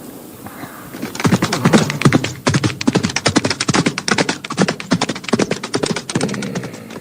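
A rapid, irregular run of sharp taps or clicks, roughly ten a second, starting about a second in and stopping shortly before the end.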